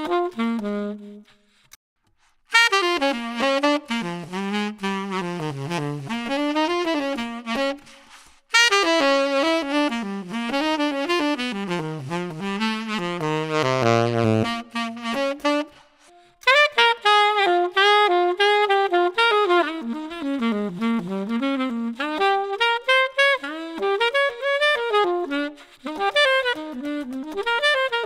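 Unaccompanied saxophone phrases. An alto saxophone (Selmer SA80 Series III) finishes a phrase just after the start. After a short pause, a tenor saxophone (1958 Selmer Mark VI) plays melodic lines for about thirteen seconds, reaching down into its low register. After another brief pause, the alto saxophone plays a higher melodic line to the end.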